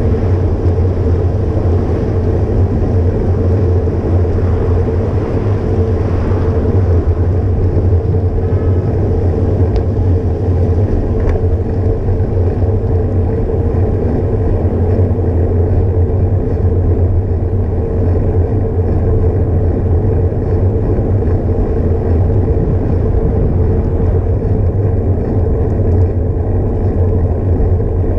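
Steady wind rush and rumble on a GoPro action camera mounted on a moving bicycle, with tyre noise from the road, loud and unchanging throughout.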